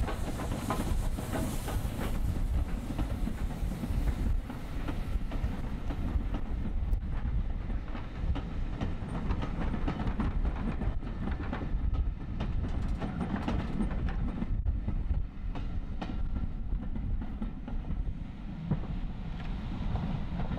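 Steam-hauled train passing: LMS Stanier 8F 2-8-0 No. 48624 and its coaches roll by with a steady rumble and the clickety-clack of wheels over rail joints.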